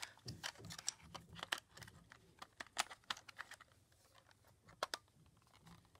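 Faint, irregular plastic clicks and taps from handling a Sony Handycam HDR-CX405 camcorder while fitting its battery into the back, with a few sharper clicks about one, three and five seconds in.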